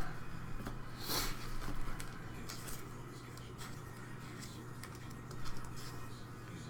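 Soft, scattered rustling and sliding of trading cards being slipped into plastic card sleeves, loudest about a second in, over a steady low hum.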